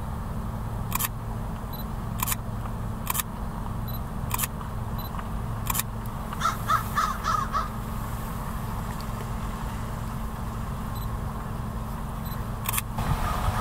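A crow cawing, a quick run of about five calls midway, over a steady low engine hum. Six sharp clicks are spread through it, one every second or so early on and one more near the end.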